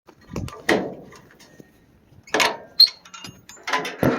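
Irregular handling-type knocks, scrapes and clicks, a handful of separate hits with a sharp click near the middle.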